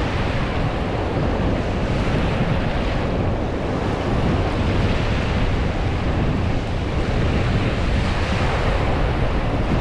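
Ocean surf washing onto the beach with wind buffeting the microphone, a steady rush with no distinct events.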